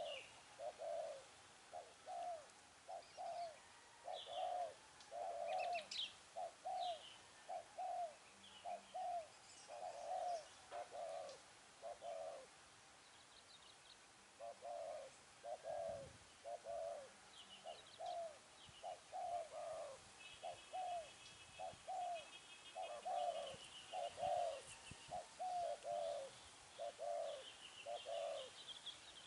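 Spotted dove cooing in a long run of short, low coos, about two a second, with a pause about halfway through. Small birds chirp and trill faintly higher up.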